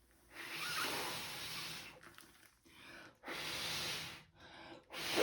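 A person blowing air out through the mouth in several puffs, each about a second long with short pauses between, pushing wet acrylic paint across a canvas.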